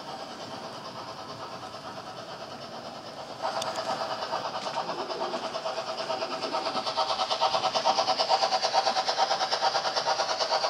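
HO-scale model BR 50 steam locomotive hauling tank cars along the layout track: a steady rhythmic running clatter that jumps in level about three and a half seconds in and grows louder as the train comes closer.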